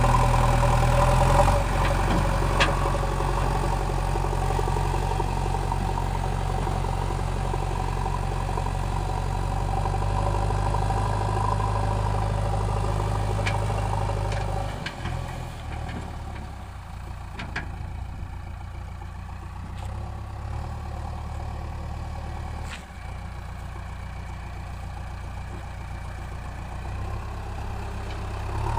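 JCB backhoe loader's diesel engine running as it pushes soil with its front bucket, a steady drone that shifts in pitch a few times. It grows quieter about halfway through as the machine moves off and louder again near the end, with a few faint clicks.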